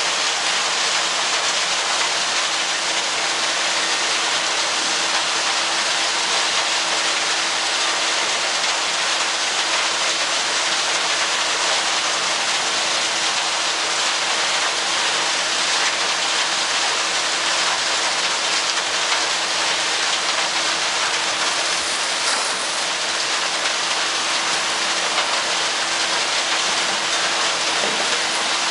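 Wheel loader and yard machinery running: a loud, steady rush of noise with a constant hum underneath. Near the end the raised loader bucket begins tipping wood chips into the chip trailer.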